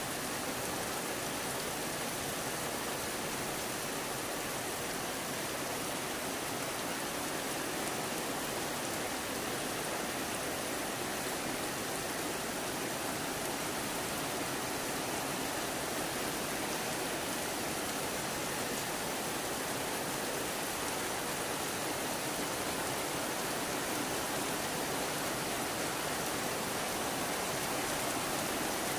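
Steady rain, an even hiss of falling water with no distinct drops or pauses.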